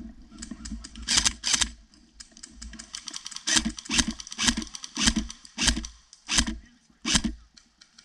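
Footsteps crunching through dry fallen leaves: two steps, a short pause, then seven more at a walking pace before they stop.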